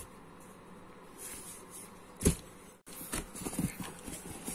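Quiet handling of fabric baseball caps in a cardboard box: soft rustling, with one sharp knock a little over two seconds in and scattered small clicks and rustles near the end.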